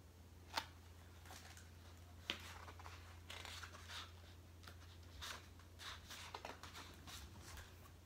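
Pages of a picture book being turned and handled: two sharp clicks, about half a second and two seconds in, then a run of faint paper rustles and soft taps.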